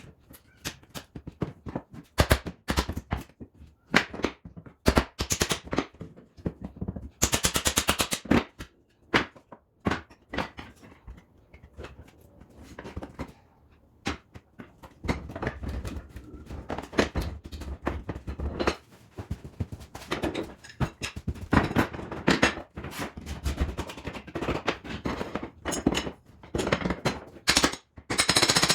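Repeated sharp knocks and impacts in irregular runs, with a fast rattling series of strikes about seven seconds in.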